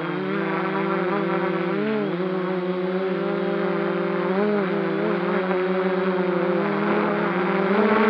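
A drone's propellers humming steadily in flight, the pitch briefly dipping and rising twice.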